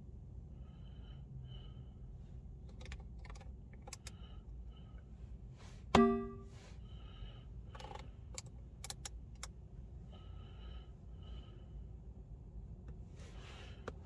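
One loud, metallic, cowbell-like synth hit from a Minimoog Model D plugin about halfway through, ringing out over about half a second. Scattered short clicks come before and after it.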